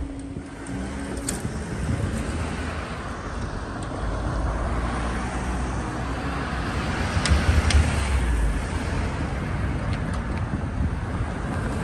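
Road traffic driving over the level crossing: cars and a van passing close, engines and tyres, loudest about seven to eight seconds in.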